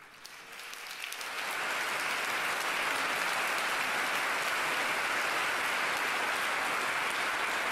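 A large crowd applauding, swelling over the first second or two and then holding steady.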